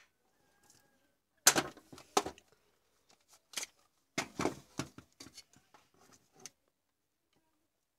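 Irregular knocks and clatter of a plastic cordless drill being set down and a charger's plug lead being handled, with a loud knock about a second and a half in and a cluster of knocks a few seconds later.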